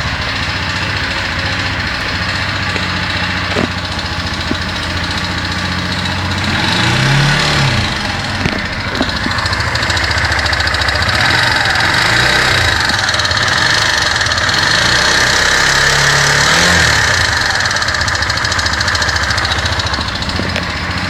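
Kymco Quannon 150 motorcycle engine idling with an abnormal mechanical noise, revved up and back down briefly a few times. The noise comes from a failed camshaft bearing.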